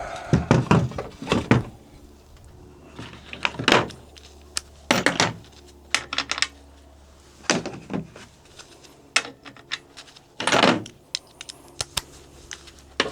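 Irregular metal clinks, knocks and rattles of hand tools and loose parts being worked on a corn planter's finger pickup seed meter, with a couple of short scrapes. The meter is being taken apart because it binds and will not turn.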